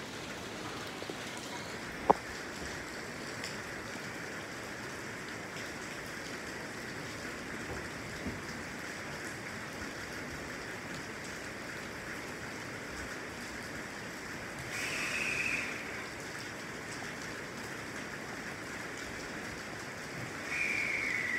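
Steady hiss of rain falling around a station platform. A sharp click comes about two seconds in, a short high tone about three quarters of the way through, and near the end a high tone that falls in pitch.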